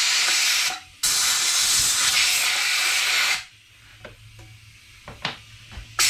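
Compressed-air blow nozzle hissing in two long blasts, blowing dust out of a vacuum cleaner's motor and turbine, with a short break between them. After that comes a quieter pause with a low hum and a few light knocks, and the air starts again at the very end.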